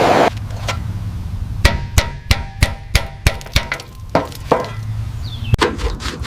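A hammer striking metal: a run of sharp blows, about three a second, some with a short metallic ring, after a brief hiss at the very start.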